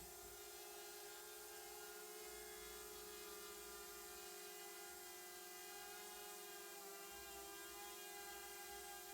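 Faint, steady hum made of several constant tones, unchanging throughout.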